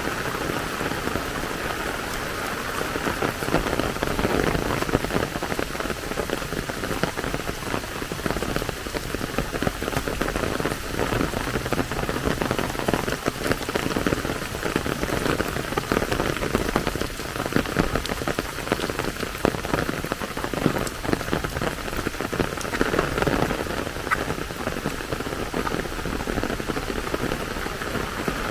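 Steady rain, a dense patter of many drops.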